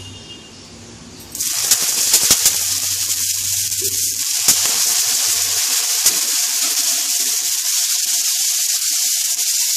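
Water sprinkled onto a hot, oiled nonstick tawa sizzling: a sudden hiss starts about a second in, with a few sharp crackles at first, then settles into a steady hiss as the water boils off as steam, a sign the griddle is hot.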